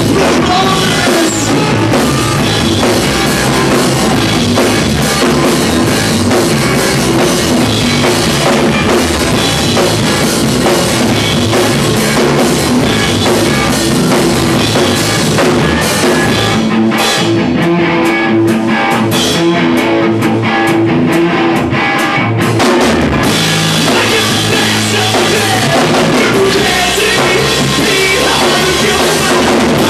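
Rock band playing loud live: drum kit, electric guitars and bass. About seventeen seconds in the cymbals and drums fall away for several seconds while a held guitar note rings, then the full band comes back in.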